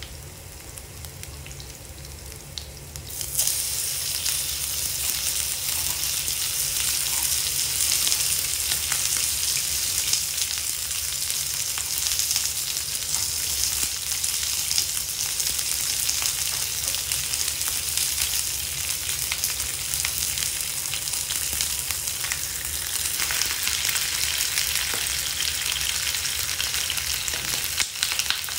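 Garlic cloves sizzling gently in oil in a frying pan, then sliced pork belly laid into the hot pan about three seconds in, setting off a sudden, much louder sizzle that holds steady as the pork fries.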